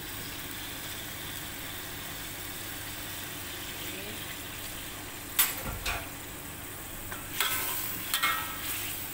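Chicken in curry sauce sizzling steadily in an aluminium wok. A metal spatula clinks and scrapes against the wok once about halfway through, then several times near the end as the pieces are stirred.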